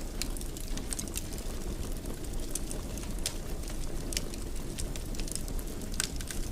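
Wood fire crackling in a fireplace: a steady low rumble of flames with irregular sharp pops and snaps scattered throughout.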